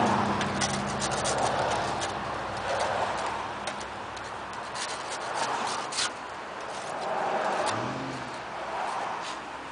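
Rushing noise of passing road traffic that swells and fades several times, with an engine hum at the start, over many small scattered clicks and crunches of a dog tugging at a deer carcass in snow.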